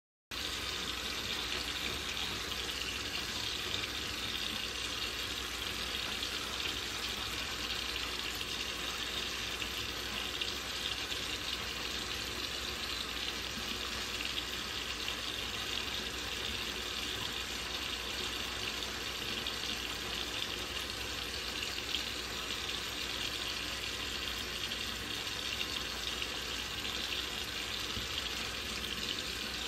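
Kitchen faucet running steadily, its stream splashing into a stainless steel sink; the water hiss cuts in suddenly just after the start.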